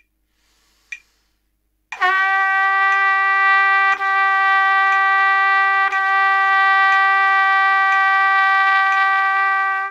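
Trumpet holding a long, steady written A, starting about two seconds in after a faint breath and sounding for about eight seconds, with two brief breaks where the note is gently re-attacked.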